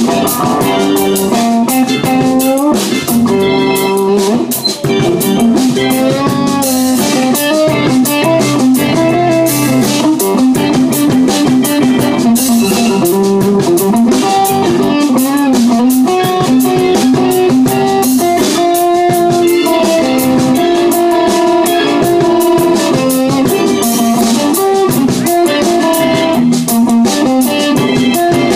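Live band playing, with guitar prominent over bass and drums.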